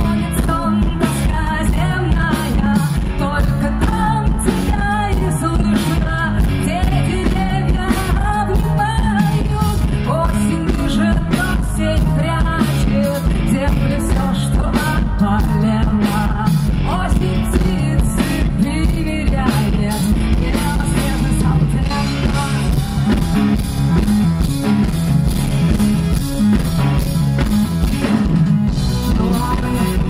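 Live amplified rock band: a woman singing into a microphone over drums, bass and keyboards.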